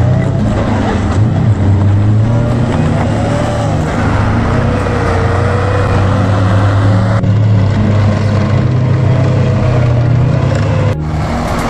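Heavy military vehicle engine running steadily, with a wavering whine above it; the sound changes abruptly near the end.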